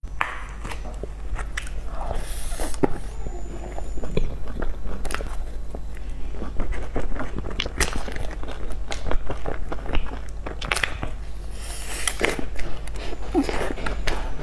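Close-miked eating of crumb-topped cream puffs: many small crunches and crackles of the crisp cookie crust as it is bitten and chewed, with soft wet chewing, over a steady low hum.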